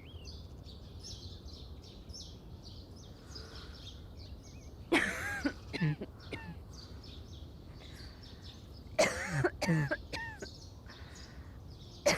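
A woman coughing in two short fits of a few coughs each, about four seconds apart, over faint continual chirping of small birds.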